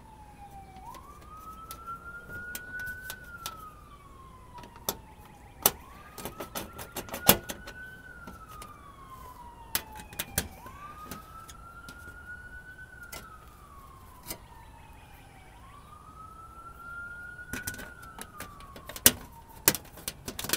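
A siren wailing in a repeating cycle about every five seconds: the pitch rises quickly, holds, then falls slowly. Over it come sharp clicks and taps, the loudest sounds, from a screwdriver working fasteners into a car's underbody splash shield.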